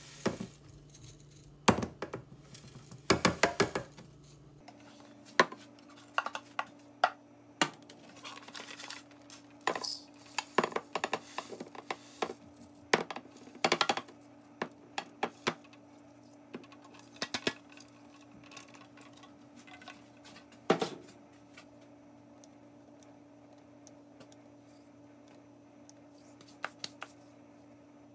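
Plastic blender jar knocking and scraping against a drinking glass as ground crumbs are shaken and tipped out of it: irregular taps and clinks, thinning out in the second half, over a faint steady hum.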